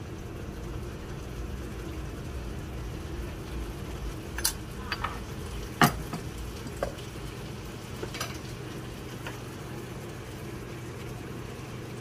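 A few light clinks and taps of kitchen utensils, the sharpest about six seconds in, as spice powders are added to fish for marinating, over a steady hum.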